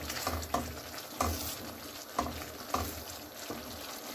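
Wooden spoon stirring thick watermelon halwa in a non-stick pan, a short scrape or knock of the spoon every half second to a second over the hiss of the hot mixture bubbling, as ghee is worked into it.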